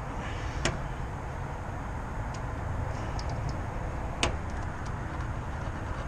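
Steady low rumbling background noise with two sharp clicks, one just under a second in and one about four seconds in.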